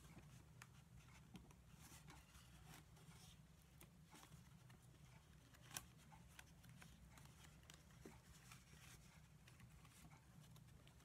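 Near silence: faint, scattered ticks and rustles of a basket reed being woven through the stakes by hand, with one sharper click about six seconds in, over a low steady room hum.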